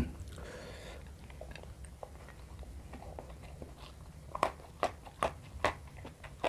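A person chewing a mouthful of food close to the microphone. It is faint at first, then from about four seconds in comes a run of sharp crunching clicks, about two a second.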